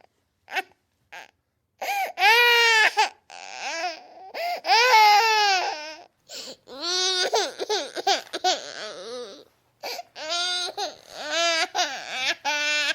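Infant crying: a string of high-pitched wails whose pitch rises and falls in arcs. There are a couple of short cries first, then longer wails broken by brief gaps.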